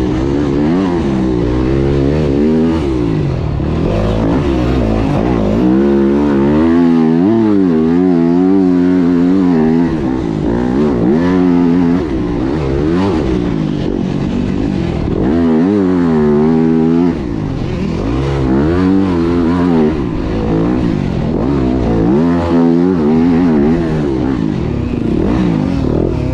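Yamaha dirt bike engine heard from the rider's seat while riding on dirt, its pitch rising and falling over and over as the throttle is worked and the gears change, with wind noise over it.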